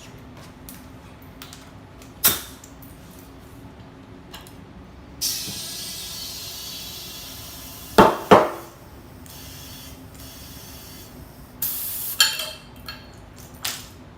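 Compressed air hissing in two bursts, a longer fading one and a shorter one near the end, amid workshop tool clicks and two loud knocks, as a moped tyre is worked on.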